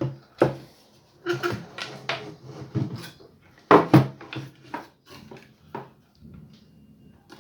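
Hard parts being handled during disassembly: a run of clattering knocks and clicks, the loudest two close together about four seconds in, then fainter scattered ticks.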